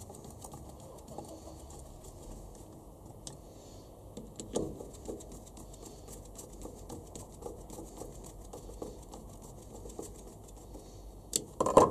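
Small clicks and taps of gloved hands handling a Honda distributor with a new plastic cap. There is a sharper knock a little before halfway, and a loud clatter of hard knocks near the end.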